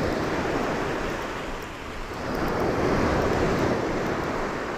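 Small surf waves breaking and washing up a sand beach in a steady hiss. The wash eases about two seconds in, then swells again.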